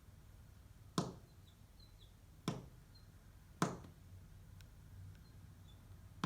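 A purple finch pecking at the window glass: three sharp taps a little over a second apart, a fourth right at the end, with faint high chirps in between.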